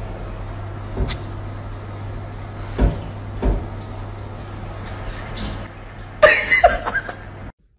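Cats on a kitchen counter: a few soft knocks over a steady low hum, then a short, loud, harsh scuffle near the end as the Siamese cat lunges at the other cat, cut off abruptly.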